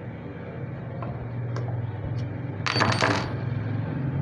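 A brief metallic clatter with a ringing tail a little past halfway, a small metal object striking and rattling on the machine's steel frame, after a few light ticks. A steady low hum runs underneath.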